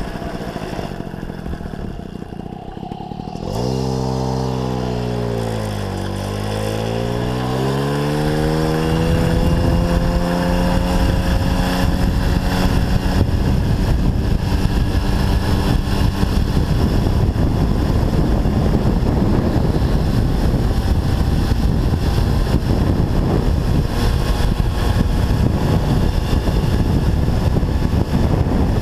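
MBK 51 moped's small two-stroke single-cylinder engine ticking over quietly, then about three and a half seconds in pulling away: its pitch dips, then climbs over a few seconds as it gathers speed. From about ten seconds in it runs steadily at speed, buried in a steady rush of wind on the microphone.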